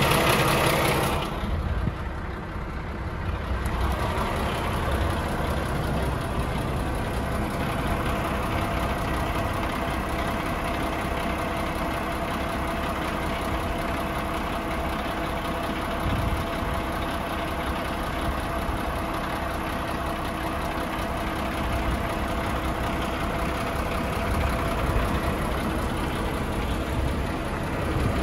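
A DAF XF106 truck's Paccar 510 bhp Euro 6 diesel engine idling steadily, a low even hum with a faint steady tone. The first second or so carries a louder rushing noise.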